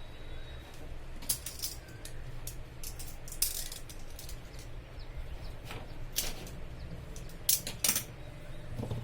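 Irregular sharp clicks and scrapes of hand tools working an Ethernet cable, loudest a few times around the middle and near the end, over a low steady hum.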